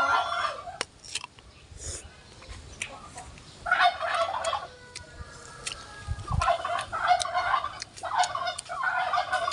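Poultry calling in three short bursts, about four, seven and eight to nine seconds in.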